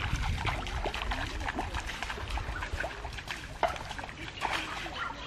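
Bare feet splashing and sloshing in a shallow stream as a child wades through, in a quick irregular run of small splashes.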